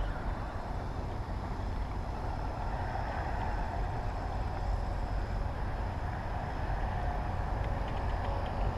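Steady rumble of passing highway traffic, with a few faint ticks near the end.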